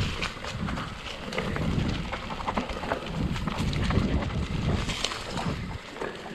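Wind buffeting the camera microphone as a mountain bike rides a dirt trail, with frequent rattles and clicks from the bike over the ground. The low wind rumble drops away near the end.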